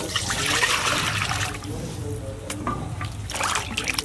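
Water poured from a plastic scoop into a stainless steel bowl, splashing loudly for about a second and a half, then a second short splash near the end.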